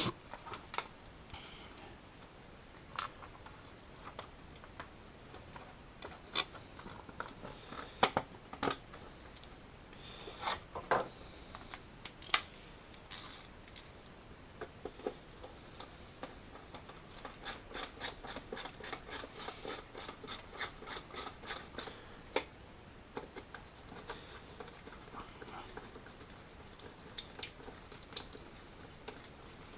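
Scattered clicks, knocks and light rattles of plastic trim and tools being handled and fitted in a car's engine bay, with a run of quick ticks in the middle.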